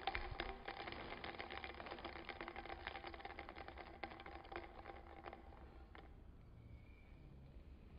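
A screw cap spinning loose on a glass bottle's threads after being kicked: a fast run of small clicks over a faint ringing tone, dying away about six seconds in.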